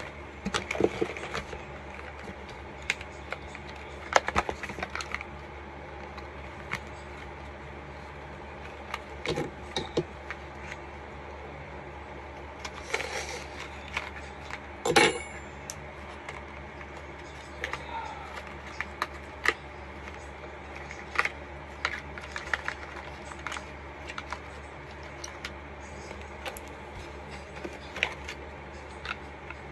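Cardboard shipping box and small product boxes being handled and opened by hand: scattered taps, scrapes and rustles, with a sharper snap about halfway through, over a steady low hum.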